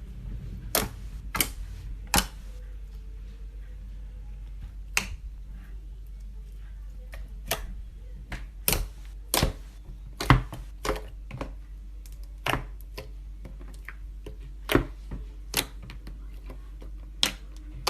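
Slime being handled, giving sharp, irregular clicks and pops, roughly one a second, over a steady low hum.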